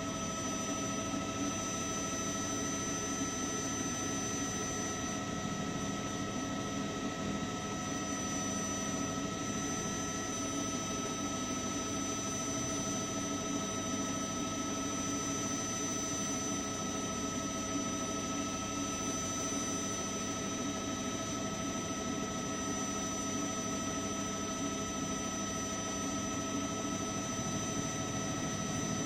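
News helicopter's turbine engine and rotors running steadily, with a constant high-pitched whine over a dense low hum.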